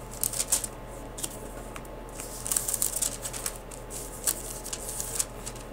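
Thin Bible pages being leafed through: several separate bursts of crisp paper rustling and flicking.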